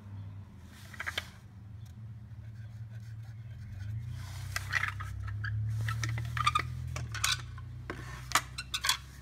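Scattered light clicks, knocks and clatter of hands handling a duck decoy and a felt-tip marker on a workbench, over a steady low hum.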